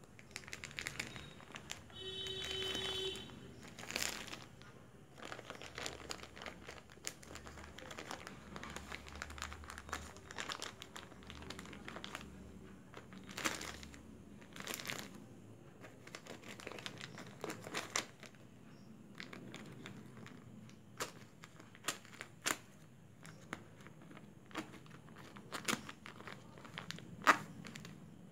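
Plastic courier mailer crinkling and rustling as it is handled and opened by hand, with scattered sharp crackles and snaps, the loudest near the end. A brief steady tone sounds about two seconds in.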